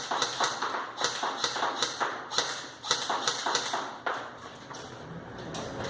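M4-style airsoft rifle firing a quick string of sharp single shots, about five a second, for roughly four seconds, then one more shot near the end.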